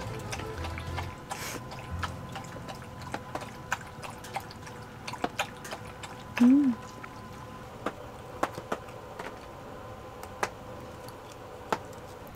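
Rain dripping onto the tent: irregular light drips and ticks throughout. About six and a half seconds in comes one brief rising-and-falling hum, the loudest sound.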